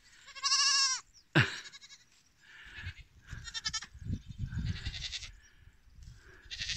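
Young goats bleating: a high, quavering bleat about half a second in and a short cry falling in pitch soon after, then fainter bleats later over low scuffling and rustling as they scramble among the stones and brush.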